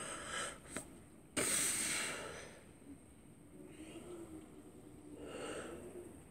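A person breathing close to the phone's microphone: a sudden loud, hissy breath about a second and a half in that fades over about a second, a small click just before it, and a shorter breath near the end.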